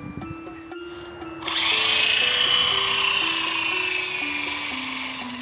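Small electric motors of a toy RC helicopter drone whining at a high pitch, starting about one and a half seconds in and slowly falling in pitch and level, over background music with a simple stepping melody.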